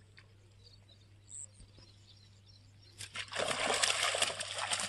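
A hooked fish thrashing and splashing hard at the water surface, starting about three seconds in: a loud, continuous run of rapid, sharp splashes.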